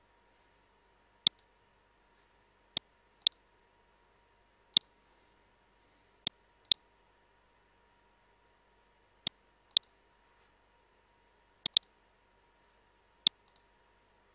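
Computer mouse button clicks: about eleven sharp single clicks spaced one to two seconds apart, a few in quick pairs, over a faint steady hum.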